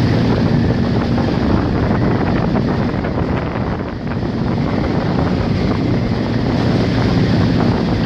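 Hurricane-force wind rushing around buildings and buffeting the microphone: a loud, steady roar of noise that eases slightly about halfway through, with a faint low hum coming and going.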